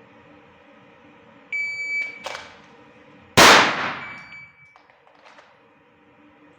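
An electronic shot-timer start beep, then two pistol shots: a lighter crack under a second later and a much louder shot about a second after that, ringing off the range walls. A second, fainter timer beep follows the loud shot.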